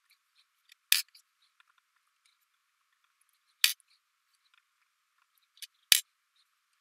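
A small die rolled onto a desk three times, each roll a short sharp clatter, with faint scratching of a pen writing on paper in between.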